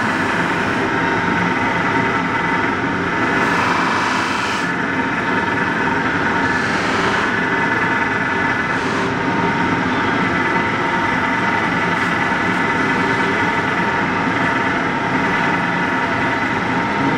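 Polishing machine running with its cloth buffing wheel spinning: a steady motor hum with a constant whine and hiss. During the first few seconds a folding knife blade held against the wheel adds a brighter rushing hiss.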